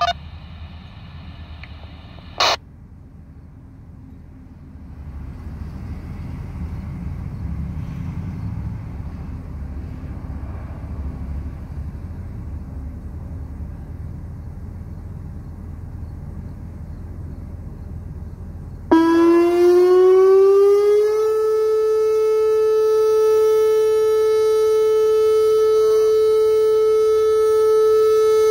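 Pancake-style outdoor tornado warning siren sounding for its monthly test. It starts about two thirds of the way in, winds up rising in pitch for about two seconds, then holds a steady tone. Before it, a tone over a radio scanner, the siren's DTMF activation tone, ends with a click a couple of seconds in, followed by a low rumble.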